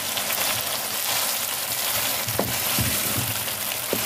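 Chicken pieces and ginger-garlic paste sizzling in hot oil in a wok-style pan while a wooden spoon stirs them, with a few light knocks of the spoon against the pan in the second half.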